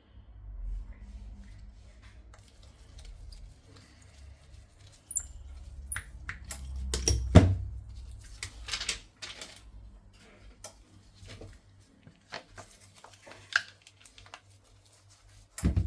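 Handling noises of phone-repair work: scattered small clicks and taps of a phone and small tools being handled, with a low rumble of handling and a louder knock about seven seconds in and again near the end.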